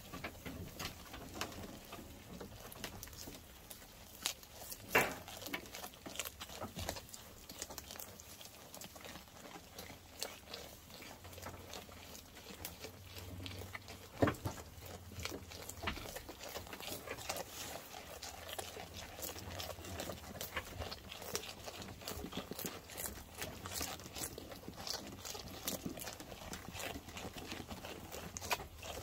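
Merino sheep tearing and chewing fresh grass at close range, a continuous run of crisp rips and crunches. Two louder knocks stand out, about five seconds in and again near fourteen seconds.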